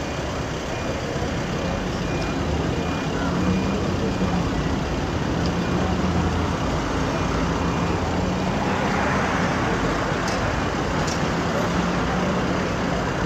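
A road vehicle's engine running steadily amid traffic noise, with the noise growing louder about eight seconds in.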